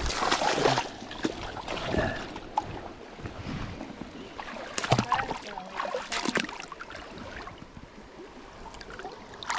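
Running stream water with irregular sloshing and splashes, the loudest about five seconds in.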